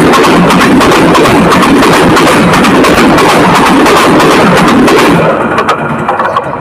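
Train passing directly over a phone lying between the rails: a very loud rush of wheel and undercarriage noise with rapid clattering. It drops away abruptly about five seconds in as the last carriage clears, leaving a few faint clicks.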